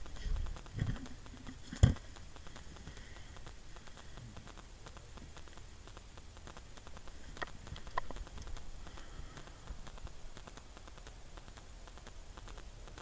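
Handling noise as the camera is moved about: low bumps in the first second and one sharp knock about two seconds in, a couple of lighter clicks near the middle, and a faint steady patter of small ticks under it all.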